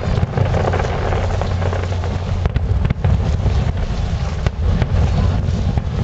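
Aerial fireworks bursting in a dense, continuous series of booms and sharp cracks over a steady low rumble.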